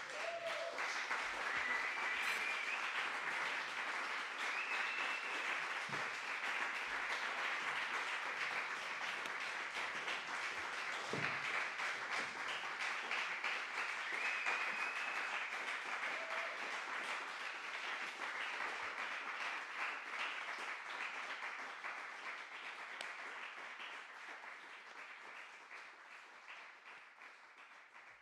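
Audience applauding, starting suddenly and holding steady, then fading away over the last several seconds.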